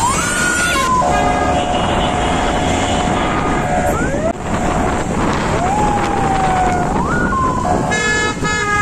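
Police vehicle siren giving rising whoops near the start and again about six to seven seconds in, over busy road traffic with long, steady car horn blasts in between.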